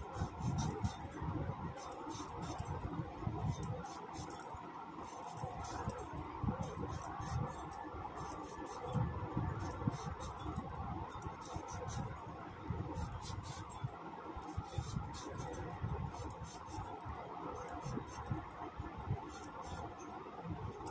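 Vegetables, most likely papaya and potatoes, being peeled and cut on a boti, a curved blade fixed upright in a wooden base: irregular scraping cuts with soft knocks and sharp clicks.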